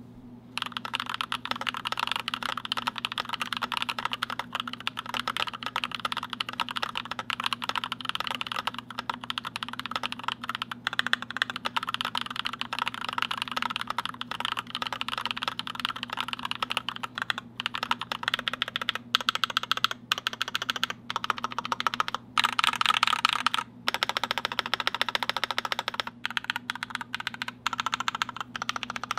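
Typing on a GMMK Pro keyboard built with an aluminium plate and foam, lubed Glorious Panda tactile switches and PBT keycaps: a fast, continuous run of keystrokes broken by a few short pauses.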